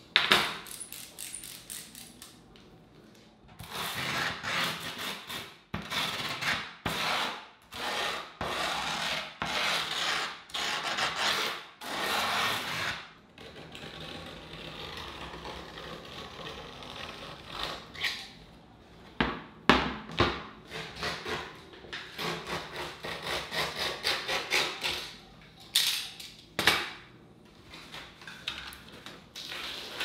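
Mob griptape on a wooden skateboard deck being worked by hand. First comes a run of coarse rasping strokes about a second apart as the grip is rubbed against the deck's edge, then a steadier rasp as a utility knife cuts through the grip along the edge. Scattered scrapes and sharp clicks follow.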